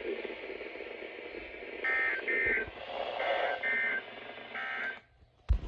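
Weather alert radio broadcast: hissy static with three short warbling bursts of two-tone digital data, about a second apart, the end-of-message code that closes an EAS alert. The audio drops out near the end, with a sharp click.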